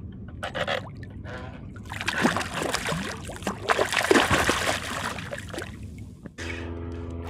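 A hooked bluefish thrashing at the surface beside a kayak, with a dense run of splashes lasting about four seconds. Near the end a steady droning hum starts abruptly.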